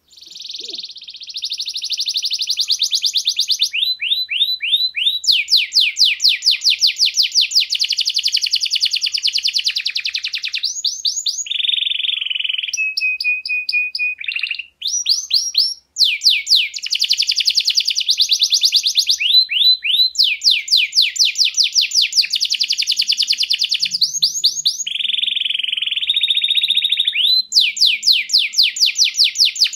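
Domestic canary singing a long, continuous song of rapid trills and rolling repeated notes. It holds one steady whistled note about halfway through, then breaks off briefly twice before the trills resume.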